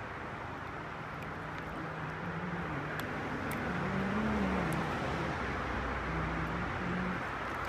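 Road traffic passing over the bridge overhead: a steady rumble of vehicles that swells about halfway through and eases near the end.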